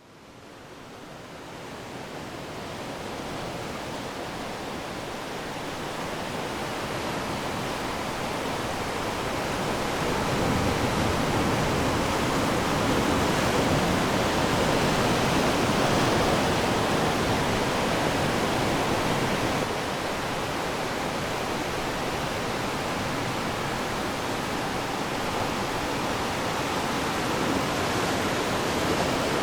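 Ocean waves breaking on a shore: a steady rush of surf that fades in over the first several seconds, swells louder around the middle, and drops back a little about two-thirds of the way through.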